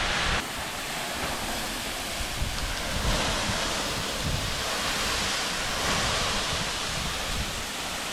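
Steady rushing of a tall waterfall, Hemmed-In Falls, flowing well, with wind buffeting the microphone in uneven low rumbles.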